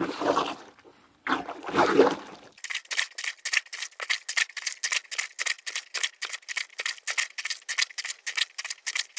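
A Breathing Mobile Washer plunger being pumped in a bucket of soapy rinse water. First come a few sloshing, sucking surges of water, then, from about two and a half seconds in, a fast, even run of sharp splashy clicks, about six a second.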